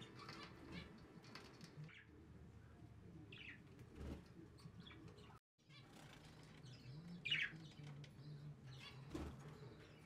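Budgerigars giving a couple of short, faint chirps, about three and a half and seven seconds in, over faint rustling and light clicks.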